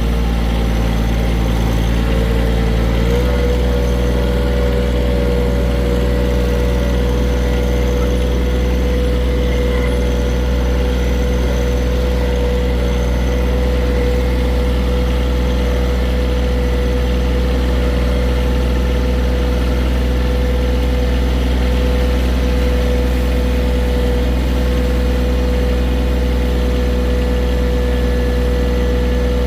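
John Deere 1023E compact tractor's diesel engine running steadily under a high whine. The pitch steps up slightly about three seconds in.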